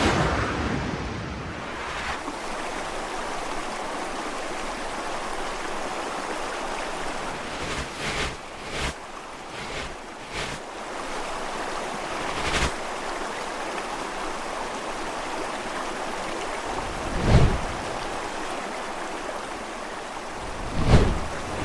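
Steady rushing of a river recording, with about half a dozen short swoosh sound effects sweeping over it, the two loudest in the second half.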